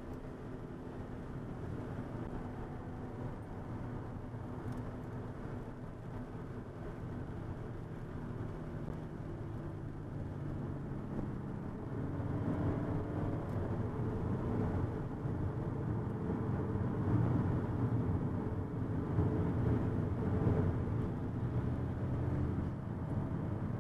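Car engine and road noise heard from inside the cabin while driving on track. The engine note shifts up and down and grows louder about halfway through.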